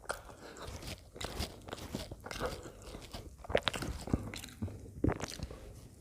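Close-up chewing and mouth sounds of someone eating pav bhaji: irregular soft crunches, wet smacks and clicks.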